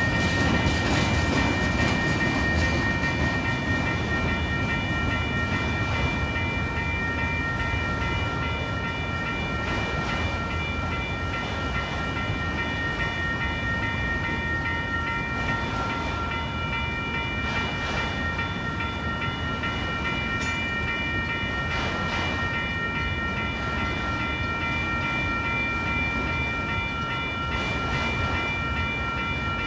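Long Union Pacific autorack freight train rolling past a grade crossing with a steady rumble of cars and wheels. Over it the crossing bells ring without pause: an electronic bell and mechanical bells. One of the bell tones drops out about halfway through.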